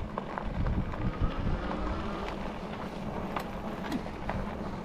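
Riding an Engwe Engine Pro e-bike over a dirt and gravel path: wind buffeting the microphone and tyres rolling, with a steady low hum and scattered small clicks of grit under the tyres.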